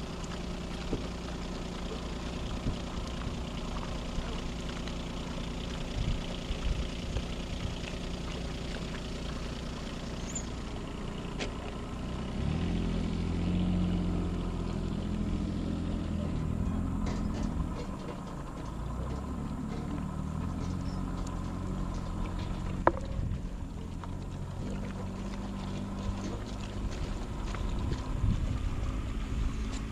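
An engine running steadily. Its low hum grows louder and shifts in pitch from about twelve seconds in, then settles again after a few seconds.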